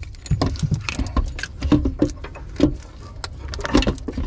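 Hand tools and bolts clinking and knocking against the engine's metal while a starter motor is fitted by hand: irregular light metallic clicks and knocks.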